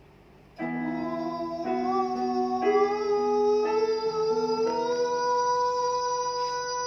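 A vocal exercise: a singer holds a sustained note over accompanying chords that change about once a second. The voice climbs step by step, then holds one long high note from about five seconds in, wavering slightly near the end.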